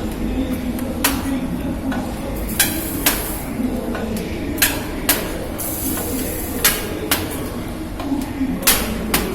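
АСГ-165 gutter-elbow corrugating machine running: sharp metallic clanks about one to two a second at uneven spacing, over a steady low hum, as the pipe is cold-stamped into folds.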